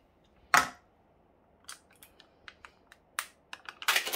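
Light plastic clicks and taps from handling a cream cheese tub and its plastic lid: one sharp click about half a second in, scattered small ticks, then a quick cluster of clicks near the end.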